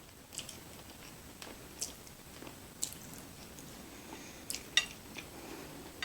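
Close-miked chewing of creamy cheesy chicken fettuccine alfredo: soft wet mouth smacks and clicks at irregular intervals, the loudest a pair just under five seconds in.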